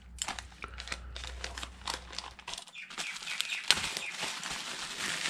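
A plastic courier satchel being torn open and handled, then bubble wrap crinkling and rustling as it is pulled off a small boxed part; irregular crackles throughout, denser in the second half.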